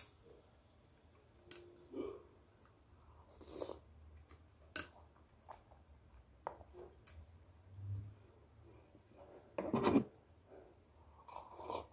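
Close-up eating sounds: a mouthful of Korean guksu noodles slurped in and chewed, with small clicks of plastic chopsticks. About ten seconds in, a louder breathy burst comes as the hot sauce hits.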